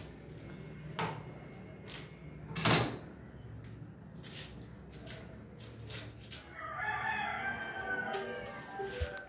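A kitchen knife knocking on a plastic cutting board a few times as an onion is cut, the loudest knock about three seconds in. Near the end comes a run of short pitched calls lasting about two seconds.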